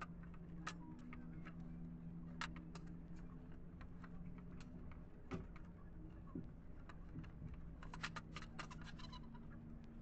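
Light plastic clicks and taps of PVC ceiling-panel strips being handled and pressed together at a glued joint, with a quick run of clicks about eight seconds in. A faint steady hum runs underneath.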